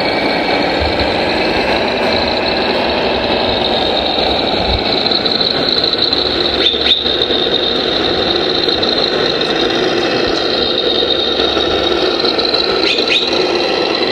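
RC model construction machinery running, with a steady high motor whine over continuous mechanical running noise and a couple of brief clicks.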